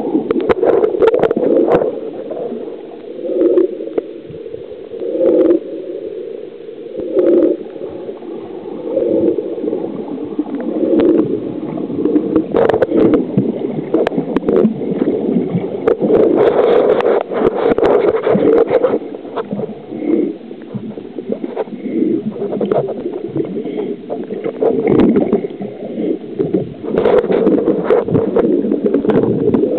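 Muffled underwater water noise picked up by a camera beneath the surface: a steady rushing gurgle with swells about every two seconds as the water moves around the housing.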